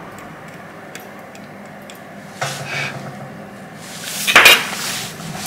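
Small handling noises at a repair bench: a few faint clicks, then two short scraping rustles, the second and louder one about four and a half seconds in.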